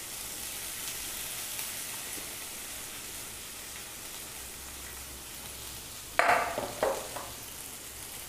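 Grated banana frying in hot oil with cumin and green chilli, a steady sizzling hiss. Two brief, louder sounds break in about six and seven seconds in.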